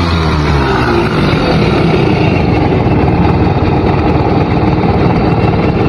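Simson S51 moped's 50 cc two-stroke single-cylinder engine running. Its pitch falls off a rev in the first second, then it runs steadily and raspily.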